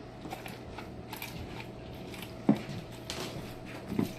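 Kitchen handling noises: light scattered clicks and knocks, with a louder thump about two and a half seconds in and another near the end.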